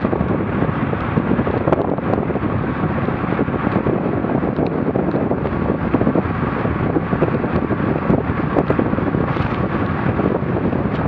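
Wind rushing and buffeting over the microphone of a camera riding on a moving bicycle at about 30 km/h: a steady, loud, fluttering noise.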